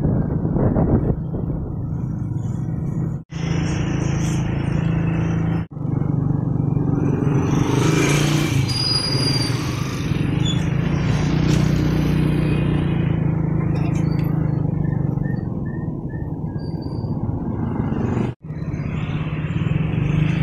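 Motorcycle engine running steadily under way, with road and wind noise, heard from the bike. The sound drops out for an instant three times, about three, six and eighteen seconds in.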